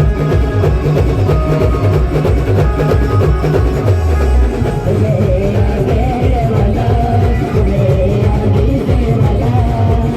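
Adivasi band playing Timli dance music: a heavy, steady drum beat under a held melody line.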